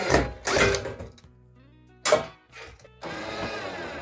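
Cordless drill/driver running in short bursts, driving screws to fasten a metal wall-heater box to the wood framing, then a longer, steadier run from about three seconds in.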